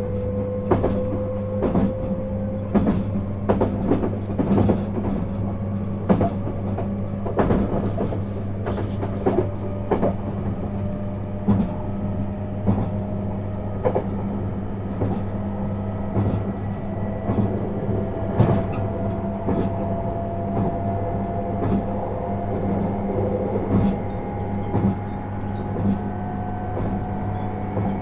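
Inside a JR 651 series electric train under way: a motor-and-gear whine rising slowly and steadily in pitch as the train picks up speed, over a steady low hum and frequent clicks and knocks from the wheels on the rail.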